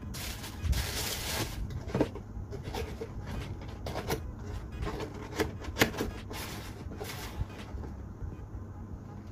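Tissue wrapping paper rustling and a cardboard shoebox being handled and its lid closed: a loud crinkling rustle at first, then a few sharp knocks and lighter rustles as the lid goes down and a sneaker is set on top of the box.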